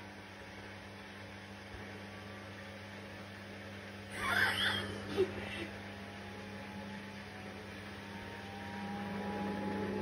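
Logic front-loading washing machine on its quick wash cycle: a quiet, steady motor hum as the drum turns. A faint whine slowly rises in pitch over the last few seconds as the drum spins up, with a brief rustling noise about four seconds in.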